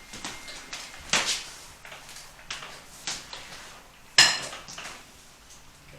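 Side-lying chiropractic pelvic adjustment: a smaller click about a second in, then one sharp, loud crack about four seconds in as the thrust is delivered.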